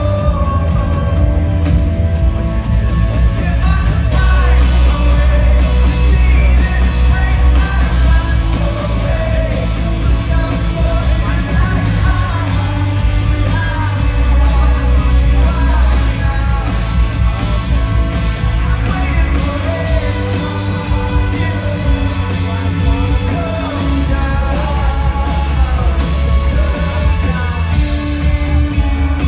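Indie rock band playing live, with a lead singer over guitars, bass and drums.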